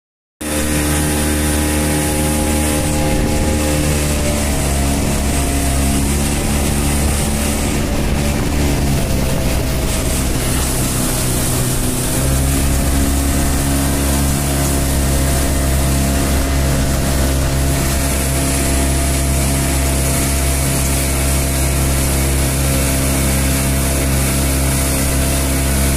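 Speedboat engine running under way, with water splashing and spraying against the hull. It starts abruptly, its pitch dips and wavers in the first few seconds, shifts about halfway through, then holds steady.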